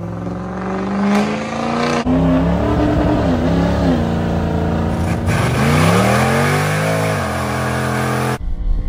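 Car engine revving, its pitch rising and falling several times, heard in a few short pieces joined by abrupt cuts.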